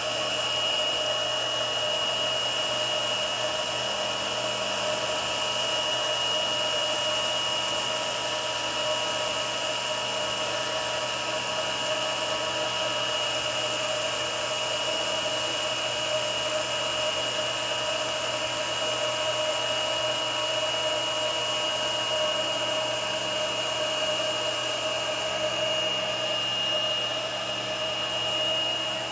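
Cordless vacuum cleaner running steadily, a constant high-pitched motor whine over the rush of air.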